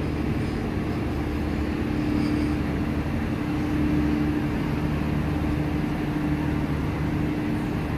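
Train of stainless-steel sleeping carriages moving slowly past the platform: a steady low rumble with one steady hum in it.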